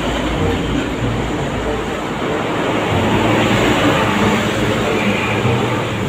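A vehicle engine running steadily under an even rushing noise, with a low hum and no sharp events.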